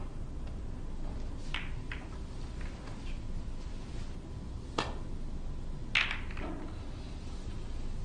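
Snooker balls clicking as the cue ball runs into the pack of reds and off the cushions: a few sharp, separate clicks, the loudest about six seconds in, over a steady low room hum.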